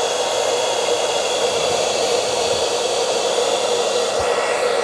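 BERTA 1875W ionic hair dryer running steadily on its high setting: an even rush of blown air with a faint high whine.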